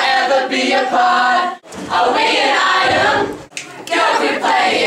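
A group of teenagers, mostly girls, singing together in chorus, in phrases with short breaks between them.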